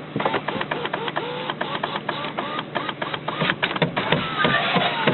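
Rapid, irregular tapping and clicking, several taps a second, like a large flightless bird's beak pecking at the car and camera, with a few short squeaks near the end.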